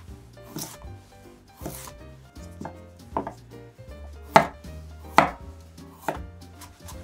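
Kitchen knife slicing through a carrot and striking a wooden cutting board: about seven separate, unevenly spaced chopping strokes, the two loudest a little past the middle.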